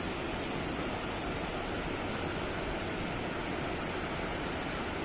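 Steady rushing of a waterfall and its stream, an even wash of water noise with no change.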